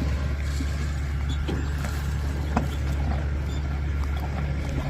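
Steady low rumble of an idling vehicle engine, with a few faint clicks.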